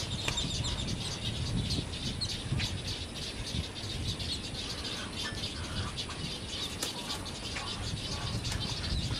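Birds calling in a nesting colony: many short, high chirps and clicks, busiest in the first couple of seconds, over a steady low rumble.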